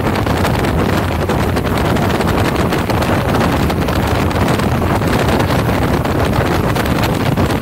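Speedboat running at speed over open water, its engine noise mixed with heavy wind buffeting the microphone in a steady, loud rush.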